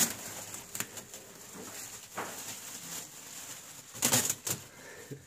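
Silver foil wrapping and cardboard packaging rustling and crinkling as a child pulls at it. Louder bursts come about two seconds in and again around four seconds.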